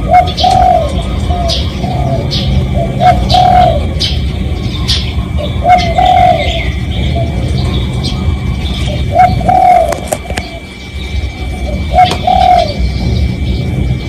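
Spotted dove cooing: about six short phrases of low, rising-and-falling coos spaced a second or more apart. Small birds chirp briefly above it, over a low steady rumble.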